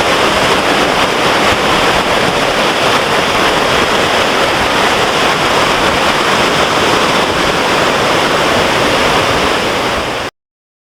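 Rushing water of a creek waterfall running high, extra loud and steady. It cuts off abruptly just before the end.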